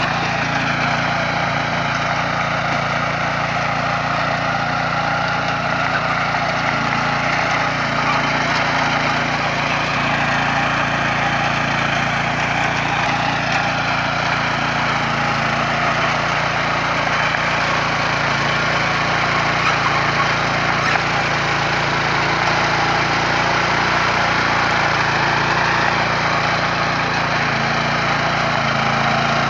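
Small petrol engine of a walk-behind mini tiller running steadily as its rotating tines dig into grassy soil.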